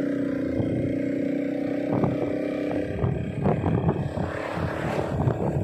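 Motorcycle riding at a steady speed, its engine giving an even hum. About three seconds in, the hum gives way to a choppy low rumble of wind and road noise.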